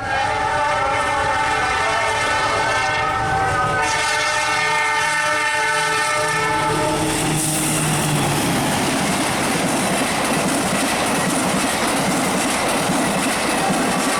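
Train horn sounding one long multi-tone blast for about seven seconds, then the train running past close by, with loud rushing and clattering wheels on the rails.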